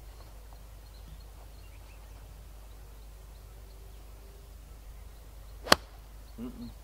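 Golf club striking a ball off the tee: a single sharp crack about two-thirds of the way in.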